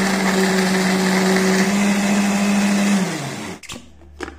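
Philips countertop blender motor running steadily at a constant pitch while puréeing a wet spice paste. About three seconds in it is switched off and spins down with a falling pitch, followed by a couple of sharp clicks as the jar is twisted off the base.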